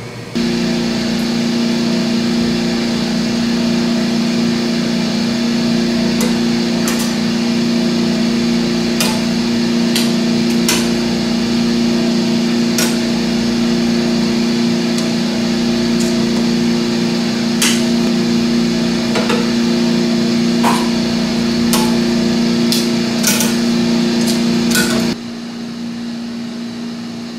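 Steady electric machine hum with scattered light clicks and metal taps from tools. The hum cuts off abruptly about 25 seconds in.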